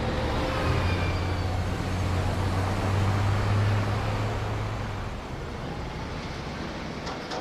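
City traffic with a double-decker sightseeing bus passing: its engine drones low and steady for a few seconds, then fades about two-thirds of the way in, leaving general traffic noise.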